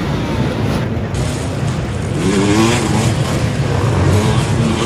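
Several dirt bike engines revving at once over a continuous rumble, one rising in pitch about two seconds in.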